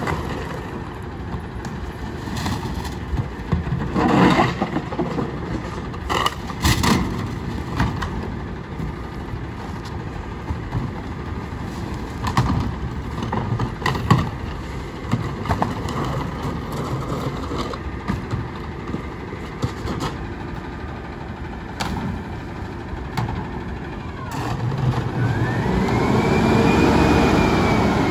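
Front-loading garbage truck idling, with clattering knocks as carts and boxes are emptied into its front-mounted container. About 25 seconds in, the engine revs up and a rising hydraulic whine sets in and holds steady as the forks lift the container over the cab.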